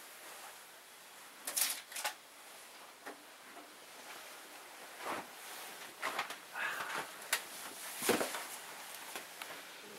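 Rustling and scattered clicks and knocks of a person moving about and handling things at a desk, with the loudest pair of knocks about a second and a half in and more around six to eight seconds.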